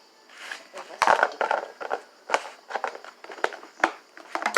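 Slime being squeezed and worked by hand, giving a run of irregular clicks and crackling pops.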